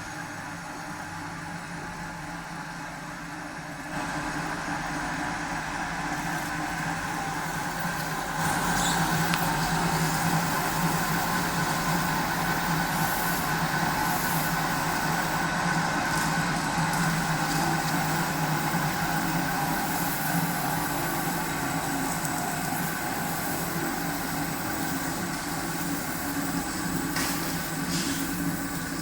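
CNC metal spinning machine running, its roller forming a spinning 1.5 mm DKP steel sheet: a steady hum with held tones, growing louder about 4 seconds in and again about 8 seconds in.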